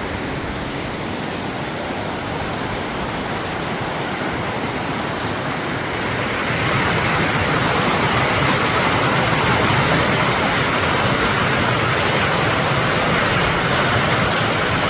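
Snowmelt-swollen mountain creek rushing over its bed: a steady wash of water noise that grows louder about six seconds in.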